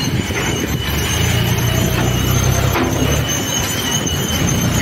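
John Deere tractor's diesel engine running hard as its front loader lifts and dumps a bucket of quarry dust into a tipper truck, the engine growing louder about a second in. A thin, steady high whine runs over the engine.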